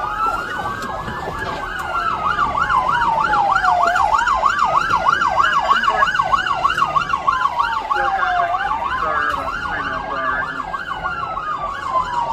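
Police car sirens sounding at the same time, one in a slow rising and falling wail and another in a fast yelp of about four or five sweeps a second.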